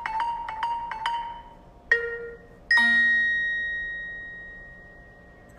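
Background music: a quick run of repeated bell-like struck notes, then two single struck notes a moment apart, the second ringing out and slowly fading.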